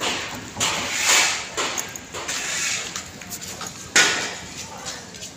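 Footsteps scuffing on a concrete floor at a walking pace, about two a second, with a sharp knock about four seconds in.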